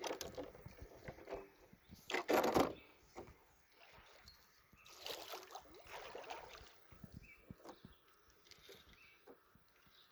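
Water sloshing and knocking around a kayak, with a loud rush of noise about two seconds in and another around five seconds.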